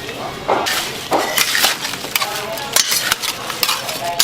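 Crisp fried chicken being worked with kitchen utensils: an irregular run of sharp crunching, clacking strikes, several a second.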